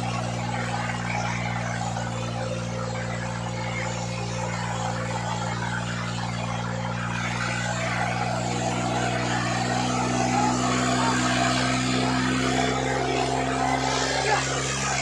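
New Holland tractor's diesel engine running hard under the load of a train of trolleys, pouring black smoke. It runs steadily and grows a little louder and higher in pitch over the last few seconds.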